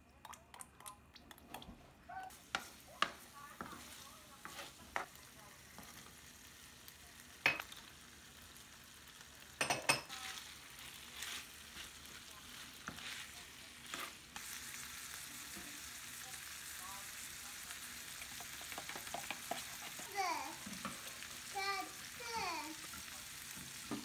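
Sharp knocks and clicks of kitchen utensils, then food sizzling as it fries in a pan, a steady sizzle from about halfway through.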